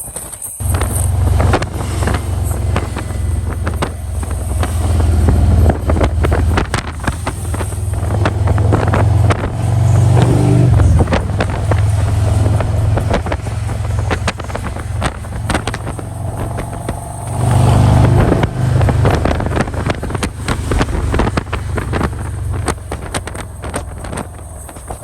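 Motorcycle engine running at road speed, with heavy wind buffeting on the microphone. The engine swells louder about ten seconds in and again about eighteen seconds in.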